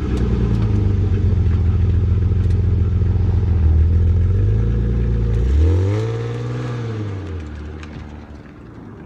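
1996 BMW E36 M3's 3.2-litre straight-six idling cold, heard close at the quad exhaust tips. About six seconds in there is one throttle blip that rises and falls in pitch, after which the exhaust sound fades.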